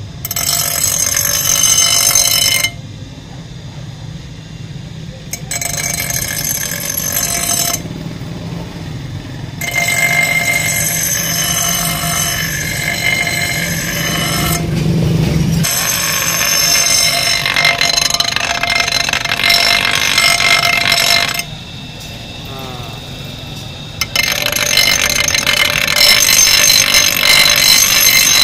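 An electric bench grinder sharpening an axe head: steel grinding against the spinning wheel with a high, ringing noise in four long passes. Between the passes come three short, quieter breaks in which the wheel spins free.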